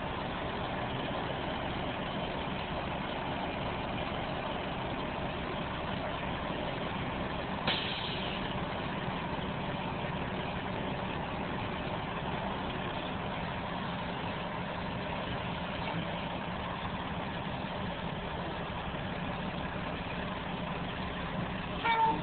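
A vehicle engine idling steadily, with one sharp click about eight seconds in.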